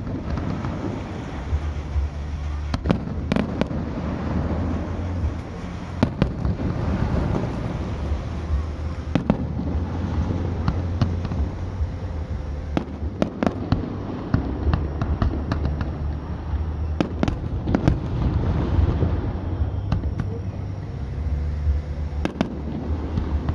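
Aerial fireworks going off: repeated sharp bangs and clusters of crackles at irregular intervals, over a steady low rumble.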